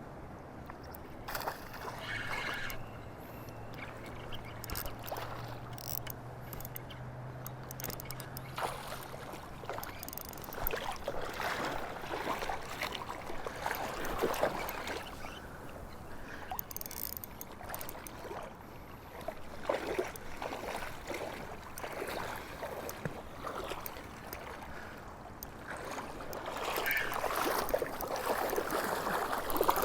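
Irregular splashing and sloshing in shallow river water, louder near the end, with a faint steady low hum through the first ten seconds.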